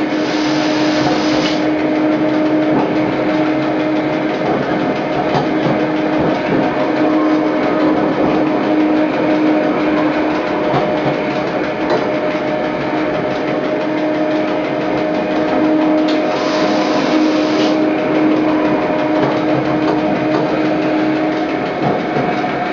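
Electric metre-gauge railcar of the Lauterbrunnen–Mürren mountain railway running, heard from the driver's cab: a steady running noise with a steady hum through it. Two short hisses break in, at the start and about sixteen seconds in.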